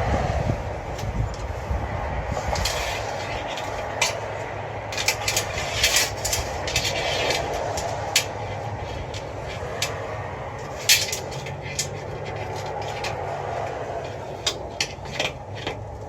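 Scattered metallic clicks, taps and scrapes of a steel tape measure blade worked inside a hollow aluminum storefront door, pushing a loose lock mounting plate that fell down inside it. The clicks come in bunches, the sharpest about eleven seconds in, over a steady low rumble.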